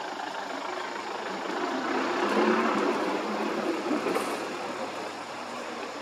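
Engine noise of a passing motor vehicle, growing louder to a peak about two and a half seconds in and then fading.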